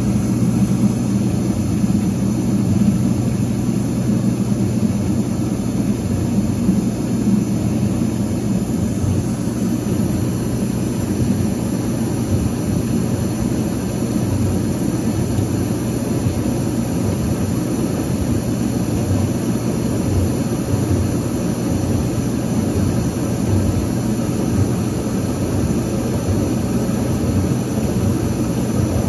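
A 1984 Whirlpool DU3003XL-0 dishwasher running mid-cycle: a steady low motor hum under a constant rushing noise.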